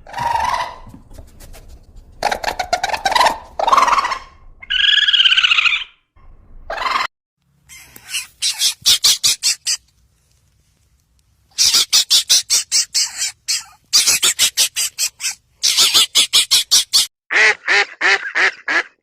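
Ducks quacking: a few drawn-out calls, then rapid runs of short quacks with brief pauses between them.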